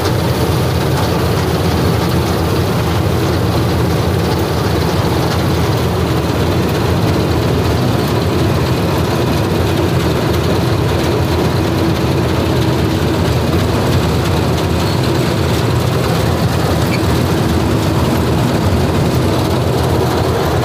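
Combine harvester running steadily under load while cutting rice: a continuous drone of the engine and the header and threshing machinery, heard close up from the operator's platform.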